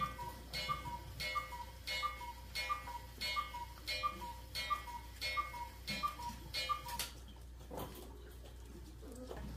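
Rhythmic mechanical ticking, about three ticks every two seconds, each with a short two-note tone, like a tick-tock; it stops about seven seconds in.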